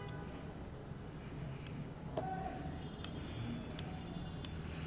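Faint, light ticks at irregular intervals as a surgical blade shaves down an oversized solder ball on a BGA chip, over a low steady background hum.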